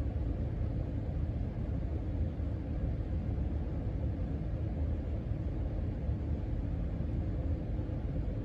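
Casablanca Panama 5 ceiling fan coasting down with the motor switched off: a steady low rumble of the turning blades moving air.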